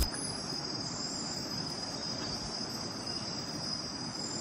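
Night insects such as crickets calling in a steady, high-pitched chorus over a low, even background hiss.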